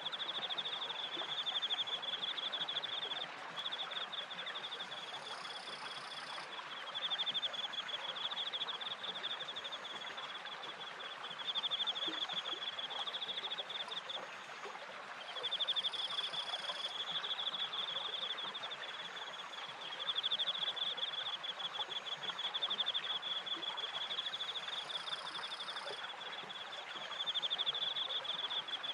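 Crickets chirping in fast, continuous pulsed trills that swell and ease every few seconds, over a steady rush of water from the stream and the turning water wheel. A fainter, higher insect buzz comes in briefly three times.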